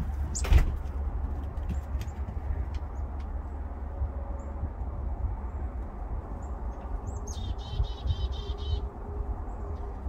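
Small songbirds chirping now and then, with a rapid trill of bird song about eight seconds in, over a steady low rumble. A sharp knock about half a second in is the loudest moment.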